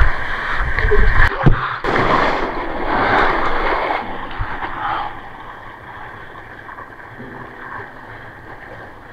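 Whitewater from a small broken wave rushing and splashing over a surfboard, loud for about the first five seconds, then easing to a softer wash of water around the board.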